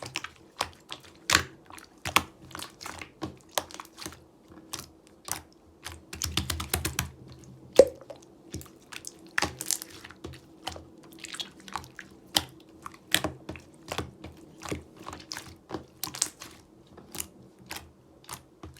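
Clear purple slime being handled, giving sticky clicks and pops at an irregular pace of roughly one or two a second, with a denser run of pops about six to seven seconds in.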